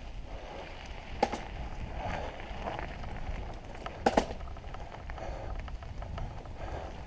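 Mountain bike rolling along a packed dirt forest trail: a steady low rumble with crunching tyre noise, and sharp clacks about a second in and again near four seconds as the bike jolts over bumps.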